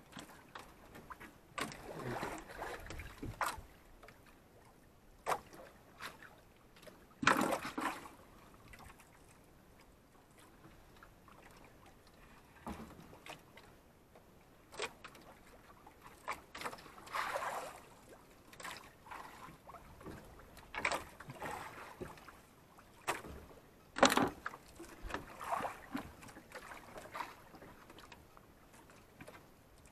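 Water lapping and sloshing against the hull of a small wooden outrigger fishing boat, coming and going in swells, with scattered knocks and thumps on the boat. The loudest knocks come about seven and twenty-four seconds in.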